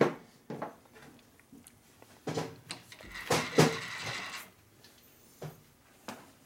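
Scattered clicks and clanks of metal tools and parts being handled in a machine shop, with a short scraping rustle about three to four and a half seconds in.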